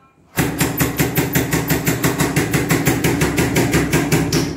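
Rapid, evenly paced rapping at a front door, about six knocks a second for about four seconds, then it stops abruptly.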